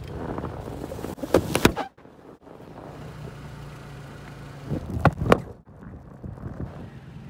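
Paint-filled balloons bursting under a slowly rolling car tyre: a cluster of sharp pops about a second and a half in, then two more about five seconds in, over the low steady hum of the car's engine.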